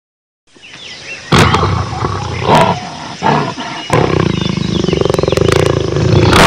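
Jaguar growling: a few loud short growls about a second apart, then a longer continuous growl from about four seconds in.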